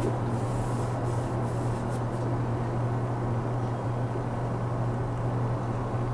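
Steady low hum with a faint hiss inside an enclosed Ferris wheel gondola during the ride, with a little brief high hiss in the first couple of seconds.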